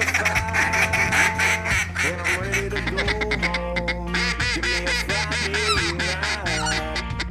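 Background music with a steady bass line, mixed with a run of repeated duck quacks.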